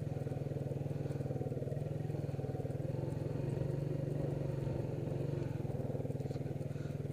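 Small motor vehicle's engine running steadily as it is driven, an even low drone that holds through.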